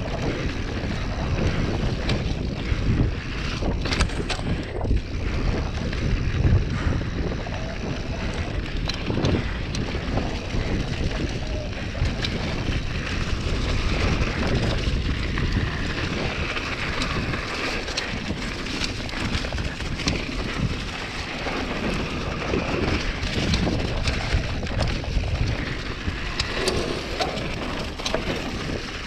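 Wind buffeting the microphone of a handlebar-mounted action camera on a downhill mountain bike descending a dirt trail at speed. Under it, the knobby tyres rumble over dirt and leaves, and the bike clatters with many small knocks over the bumps.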